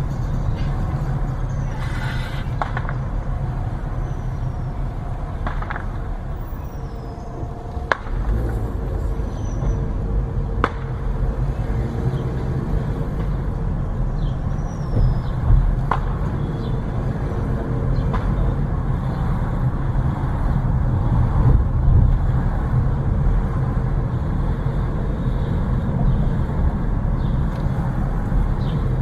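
Steady low engine and road noise of a car driving slowly, heard from inside the cabin, with a few sharp knocks about a third and halfway through.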